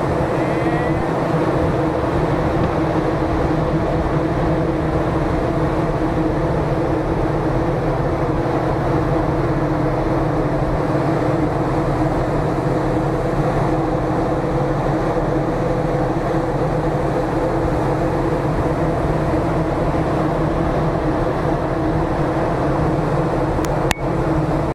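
Steady mechanical drone of a large container ship's machinery heard on deck: a low rumble with a constant hum over it.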